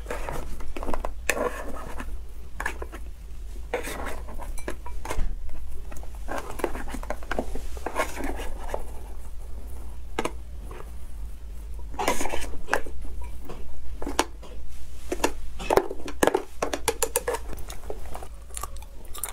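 Metal chopsticks clinking and scraping against a jar and a plate in irregular clicks and knocks, as sticky, oily food is worked out of the jar onto the plate.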